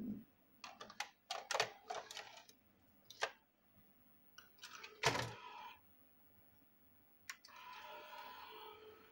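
A VHS cassette pushed into the front slot of a Panasonic NV-G30 video cassette recorder: a run of clicks and clunks as the loading mechanism takes it in, the loudest about five seconds in. About seven seconds in there is a click, then a steady whirring as the tape threads and starts to play.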